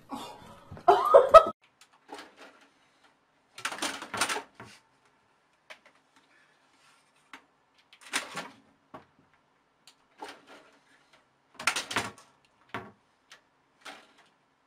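Brief knocks and scratchy scrapes every few seconds as a cat's paws bat and scrabble at the side of a computer tower case. A short, louder pitched sound comes about a second in, before them.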